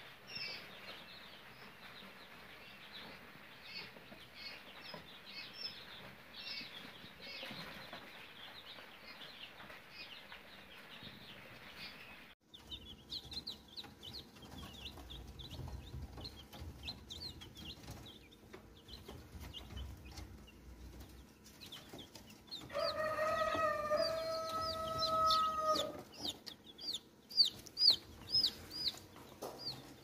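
Many chicks peeping in a brooder, with short high peeps all through. In the second half a rooster crows once, a long call of about three seconds that is the loudest sound, followed by a few loud sharp peeps.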